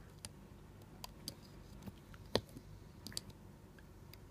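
Faint, irregular small clicks of a loom hook and stretched rubber bands working against the pegs of a plastic loom board, the sharpest one a little past the middle.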